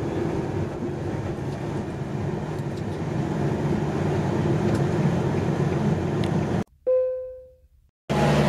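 Engine and road noise from inside a moving vehicle, a steady hum. Almost seven seconds in it cuts to silence, broken by a single ringing ding that fades out, and near the end a boat's engine comes in.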